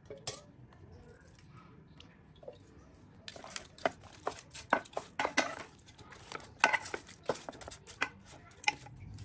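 Wooden spatula knocking and scraping against an aluminium pan as raw fish steaks are turned over with spices and oil: a quick run of clatters starting about three seconds in.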